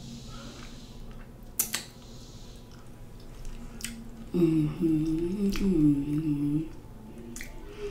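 A woman humming with her mouth closed for about two seconds in the second half, the pitch going up and down. A few sharp clicks from handling snow crab legs come before and around it.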